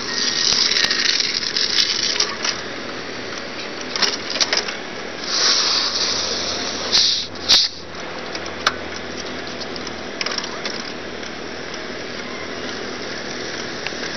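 Machinery noise: a steady mechanical rattle, with several loud bursts of hissing and a few sharp clicks in the first half.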